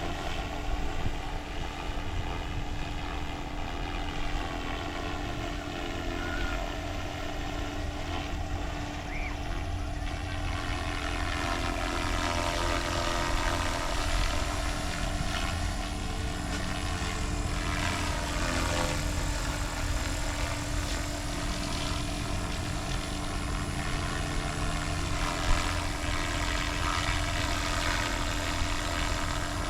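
Small helicopter flying low: a continuous engine-and-rotor drone whose tone sweeps and phases as the aircraft moves past.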